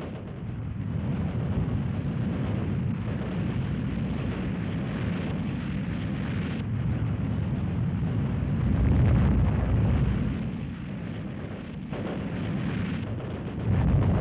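Newsreel sound-effects track for an air battle: a continuous low rumbling roar, swelling about nine seconds in and again near the end.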